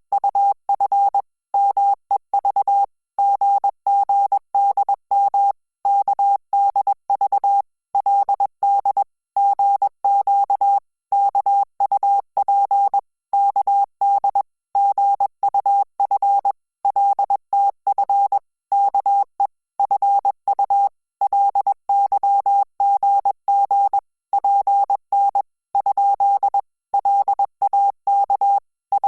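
Morse code beep tone sent at 20 words per minute: a single steady pitch keyed on and off in short dots and longer dashes, with brief gaps between characters and longer pauses between words, spelling out Korean Hangul text in Korean Morse code.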